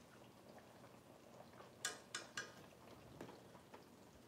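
Wooden chopsticks knocking against the metal hot pot pan, three sharp clicks in quick succession a little under halfway through, then a few softer ticks.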